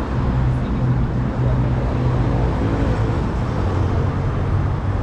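Steady city street traffic noise, with the low, even hum of a nearby vehicle engine.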